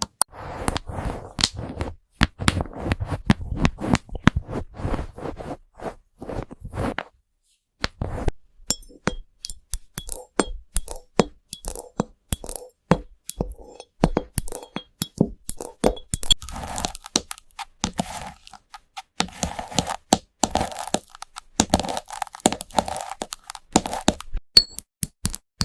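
Keyboard clicks and taps, many rapid and irregular sharp strokes, with a short pause about seven seconds in.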